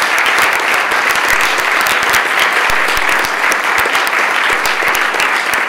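Many legislators applauding together: steady, dense hand-clapping with many sharp individual claps.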